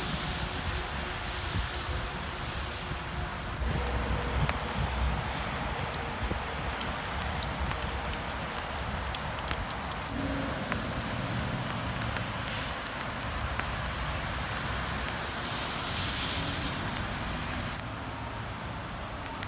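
Outdoor background noise: wind rumbling on the microphone over a steady hiss of road traffic, with no distinct events.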